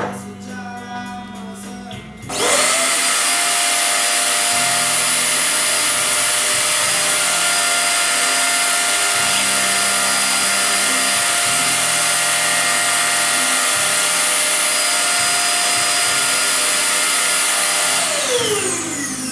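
Screen-printing press vacuum table's suction motor switching on about two seconds in with a rising whine, running steadily and loudly with a strong hiss, then spinning down with a falling pitch near the end. The suction holds the paper flat on the print bed for the squeegee pass.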